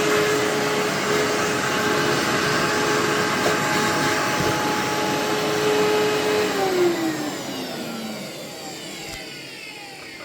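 Amway ClearTrak bagless cyclonic upright vacuum running with a steady motor whine. It is switched off about six and a half seconds in, and the motor winds down with a falling whine that fades away.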